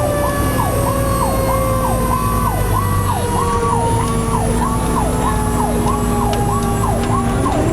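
Fire truck responding with its sirens on: an electronic siren going up and down about one and a half times a second, with a second, slower siren tone gliding steadily down and starting to rise again near the end, over the truck's engine drone.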